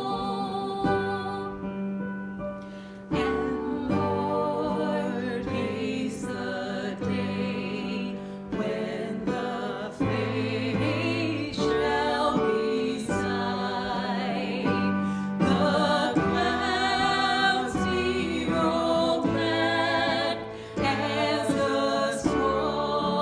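Worship song: sung melody with instrumental accompaniment.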